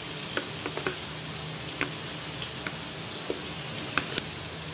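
Onion-tomato masala frying in oil in a kadai: a steady sizzle with a few scattered sharp crackles and pops.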